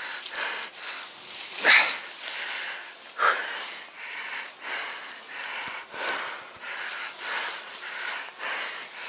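A man breathing hard in rough, irregular breaths while he strains at a heavy trapped beaver, with dry reeds and grass rustling and crackling around him.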